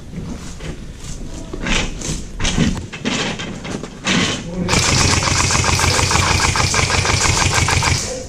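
Electric airsoft rifle firing a long full-auto burst of about three and a half seconds, starting about halfway in. The gearbox cycles rapidly over a motor hum. Before it come scattered short knocks and clicks.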